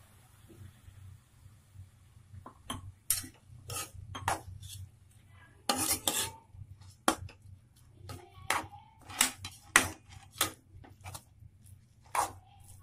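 Metal spoon stirring grated carrot and milk in a metal kadai, with irregular clinks and scrapes against the pan, a few of them ringing briefly. The knocks begin a couple of seconds in.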